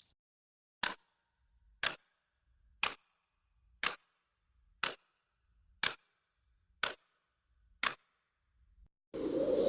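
Clock ticking slowly: eight sharp ticks, one about every second. A steady whooshing noise begins near the end.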